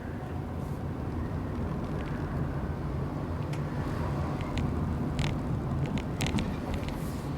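Car running on the road with a steady low drone from the engine and exhaust, the muffler in need of repair. Scattered short clicks or rattles sound over it.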